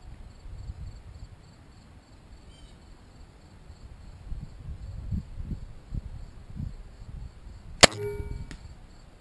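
Compound crossbow fired: one sharp, loud snap as the string is released near the end, with a brief ringing after it, then a fainter tick about half a second later.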